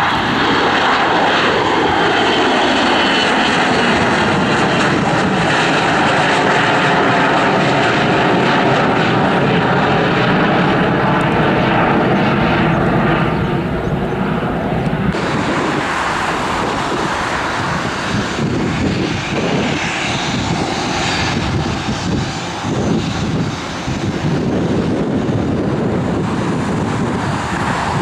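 Bombardier Global Express business jet's twin rear-mounted turbofans at climb power after takeoff: a loud jet noise with a whine that falls in pitch as the jet passes and climbs away. About halfway through, the sound cuts abruptly to a rougher, unsteady jet rumble.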